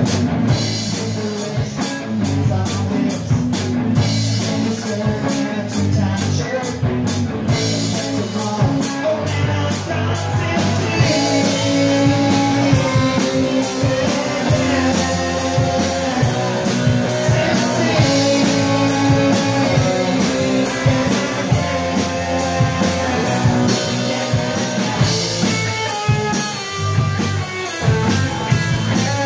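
Live rock band playing: electric guitars over a drum kit. Steady cymbal ticks mark the beat for about the first ten seconds, then give way to a fuller cymbal wash.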